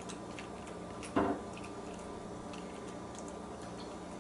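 A small dachshund-poodle mix dog eating turkey scraps, with faint wet chewing and licking clicks over a low steady hum. There is a brief pitched vocal sound about a second in.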